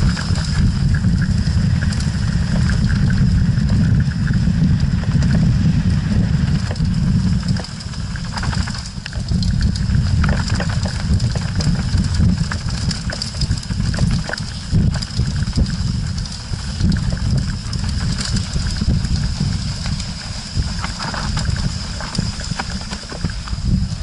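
Wind buffeting and rolling rumble on an action camera riding a Canyon Strive mountain bike down a dirt singletrack, with frequent rattles and knocks from the bike over the rough ground.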